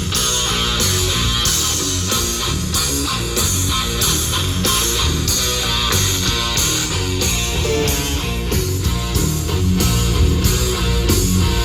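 Rock song with electric guitar and a steady beat, played loud through a JBL PartyBox 1000 party speaker.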